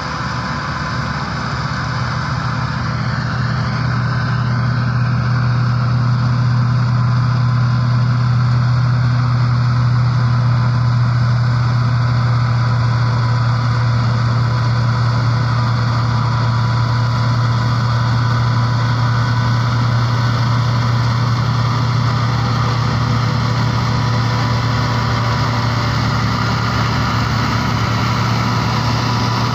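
Massey Ferguson 385 tractor's four-cylinder diesel engine running steadily under load, driving a PTO wheat straw chopper as it chops and blows straw. It is a steady deep hum with a few thin steady whining tones above it, growing a little louder over the first several seconds as the tractor comes closer.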